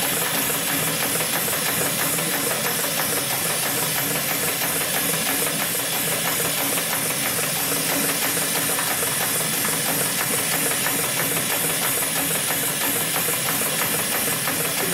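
Hightex 7373BP heavy-duty spiral sewing machine running steadily, its needle stitching rows through a thick stack of cotton cloth to build a buffing wheel. A continuous, fast mechanical clatter with a strong hiss.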